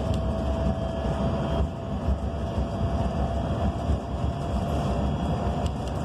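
Cabin sound of a 2019 BYD K9M battery-electric bus cruising: steady road and tyre rumble with a faint whine from its two TYC-150A in-wheel traction motors. The whine is clearest in the first second and a half.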